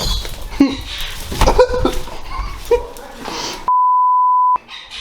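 A censor bleep: a steady single-pitched tone lasting just under a second, starting past the middle, with all other sound cut out beneath it. Before it, a jumble of voice-like sounds and sharp clicks.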